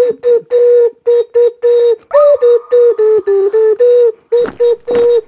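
Plastic drink bottle rigged as a homemade horn, blown in a quick run of short buzzy notes on nearly one pitch, each dipping in pitch as it ends, playing a tune. A few sharp percussive clicks join in near the end.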